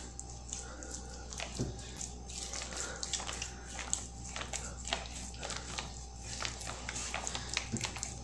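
Hands rubbing a wet scrub paste over the skin of a foot, a run of irregular short scratchy, squelching strokes over a steady low hum.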